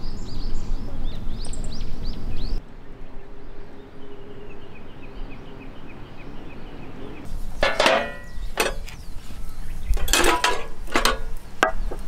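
Birds chirping over outdoor background noise, cut off suddenly; a quieter stretch with a faint repeated high call follows. From about the middle on, several sharp metallic clinks and knocks come at irregular intervals, the sound of camp gear being handled.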